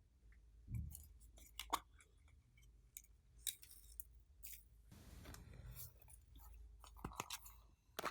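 Hands working glossy slime: faint, scattered sharp little clicks and a few softer, longer squishes.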